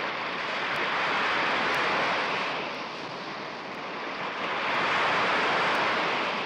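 Surf: a steady rushing noise that eases off about three seconds in and swells back up about five seconds in.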